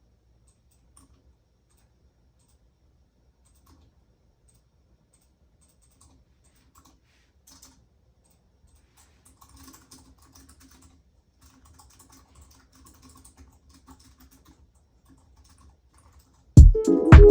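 Faint typing on a computer keyboard, soft scattered key clicks. Near the end, loud music with a beat cuts in suddenly.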